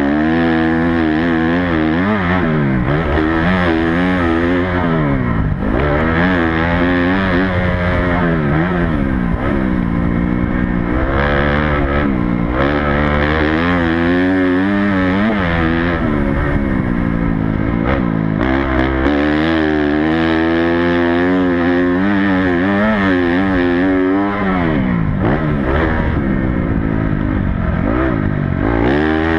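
Honda CRF250 four-stroke single-cylinder motocross bike ridden hard, heard close up from the rider's helmet camera. The engine note climbs and drops every couple of seconds as the throttle is opened and shut through the corners and straights.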